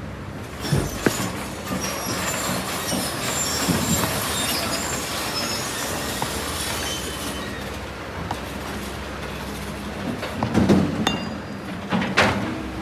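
Kobelco SK200 hydraulic excavator at work: steady diesel engine running, with high metallic squealing and scraping, then a run of knocks and clanks near the end.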